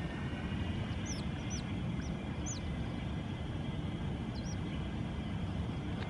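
Smooth-coated otters giving short, high-pitched chirps, about half a dozen scattered through the first four or five seconds, over a steady low background rumble.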